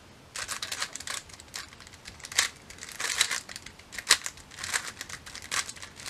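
GAN 356 X 3x3 speed cube turned fast by hand: a rapid, irregular clacking of plastic layers, starting about a third of a second in as a timed speedsolve begins.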